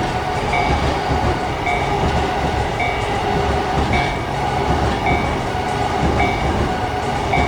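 A train running on the rails, with a level-crossing warning bell ringing over it in short two-pitch strikes about once a second.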